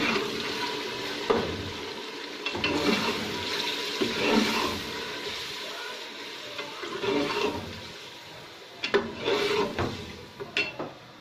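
Steel ladle stirring chicken and tomatoes frying in an aluminium pressure cooker pan: wet scraping and sizzling, with a few sharp knocks of the ladle against the pot, once about a second in and twice near the end.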